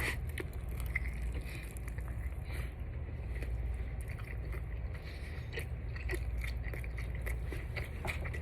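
A person biting and chewing a hot-sauce-coated chicken wing, with small wet clicks and crunches of chewing scattered throughout, over a steady low hum.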